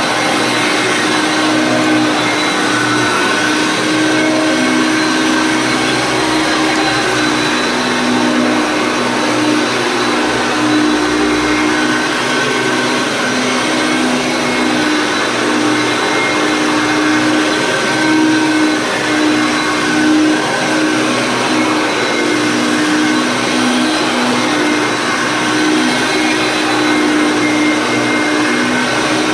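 Vintage Hoover Concept 1 direct-air upright vacuum cleaner running steadily, its motor hum wavering slightly in pitch and strength.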